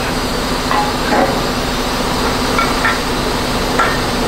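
Heavy-haul truck's diesel engine running steadily at low speed, with a few brief knocks from the trailer rig.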